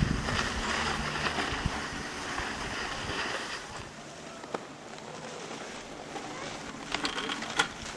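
Skis sliding over the packed snow of a drag-lift track, with wind on the microphone. The hiss eases after about four seconds, and a few sharp clicks come near the end.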